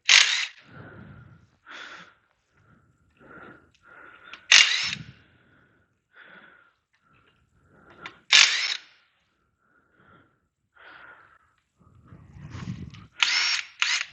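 Cordless power tool spinning out wheel bolts in short whirring bursts that rise in pitch: one at the start, another about four seconds in, another about eight seconds in, and a quick series near the end, with quieter knocks and handling between.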